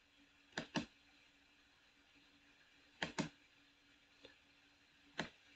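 Computer mouse button clicks over faint room hum: two quick clicks about a second in, another quick pair about three seconds in, then single clicks near the end.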